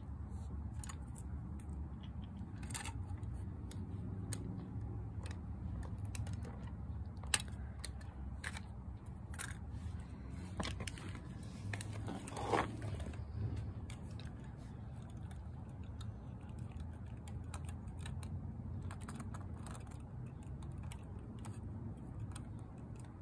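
Small plastic clicks and clacks of miniature toy wheelie bins and a model garbage truck being handled on concrete, scattered irregularly, with a sharper knock about seven seconds in and a short louder scrape around twelve seconds in. A steady low rumble lies underneath.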